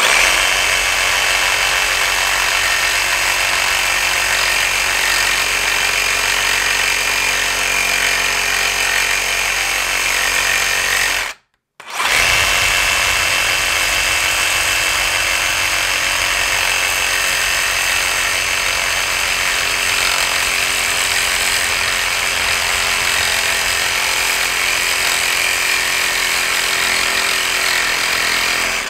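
DeWalt DCS382 cordless reciprocating saw running hard as it cuts down the head of a bolt set in a wooden beam. It stops for a moment about 11 seconds in, starts again, and cuts off suddenly at the end.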